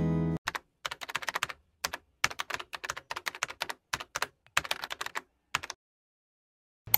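Computer keyboard typing: quick runs of key clicks with short pauses between them for about five seconds, then it stops.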